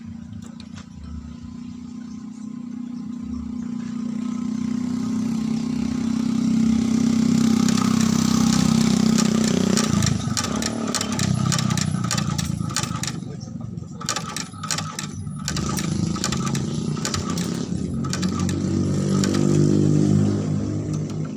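Motor-driven shoe sole stitching machine running with a steady hum that grows louder over the first several seconds and drops in pitch about halfway through, followed by a run of sharp clicks.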